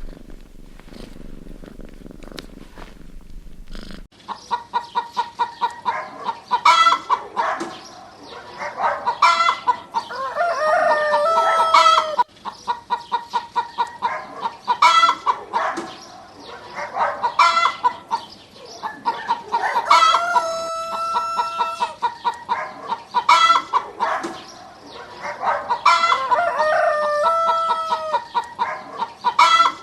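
Chickens clucking in quick runs, with a rooster crowing three times in long drawn-out calls. A cat purring is heard for about the first four seconds, before the chickens start.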